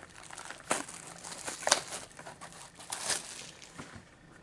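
Crinkling and rustling of packaging as a hockey card box is opened and its wrapped packs and checklist are taken out, with three sharper crackles about a second apart.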